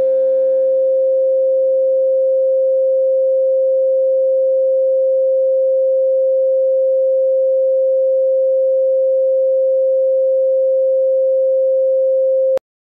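A steady electronic sine tone of about 500 Hz, the 'frequency' of a manifestation track. Fading keyboard chords under it die away over the first few seconds. The tone then holds alone and cuts off suddenly near the end with a small click.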